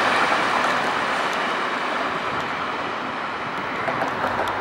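Passenger train running away down the track, its rolling noise fading steadily as it recedes, with a few faint ticks about four seconds in.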